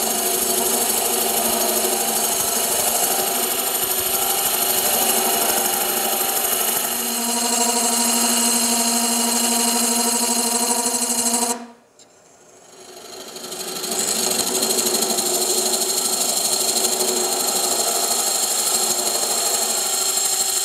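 Spindle gouge cutting into the spinning end grain of a wooden canister blank on a wood lathe, hollowing it out: a steady cutting noise with a few steady tones from the spinning work. The sound cuts off sharply a little past halfway and builds back over about two seconds.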